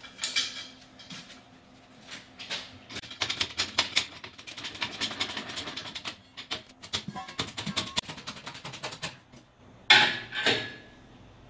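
Pickup-bed crane's hydraulic bottle jack being pumped by its handle, raising a steel plate on a chain and strap: a dense run of clicks and rattles, then two loud clanks near the end.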